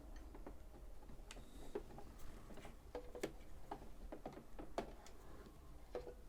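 Faint, irregular clicks and light taps of hands handling a Janome MyExcel 23X sewing machine while pulling its thread out to rethread it.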